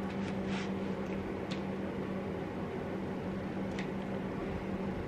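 Quiet room tone: a steady low hum over soft hiss, with three or four brief faint hisses scattered through it.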